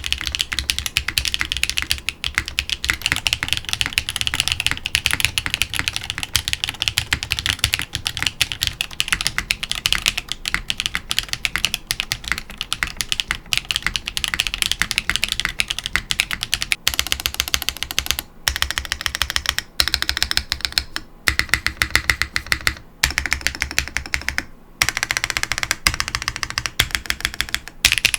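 Fast, continuous typing on a QK101 full-size mechanical keyboard, a dense stream of key clacks. About 17 seconds in, the sound of the typing changes and breaks off briefly several times.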